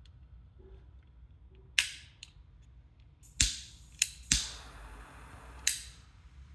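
Xikar Tactical 1 butane torch lighter being fired: several sharp clicks, then the torch flame hissing for over a second, cut off by a final click.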